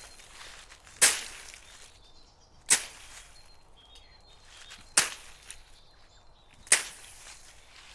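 Four sharp chopping strikes of a blade cutting through bush vegetation, spaced about two seconds apart.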